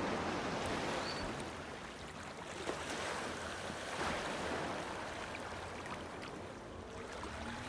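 Sea waves breaking against rocks, a steady wash of surf that swells and eases, surging near the start and again about halfway through.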